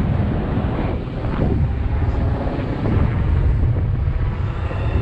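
Strong wind buffeting the microphone: a loud, gusting rumble with no steady tone.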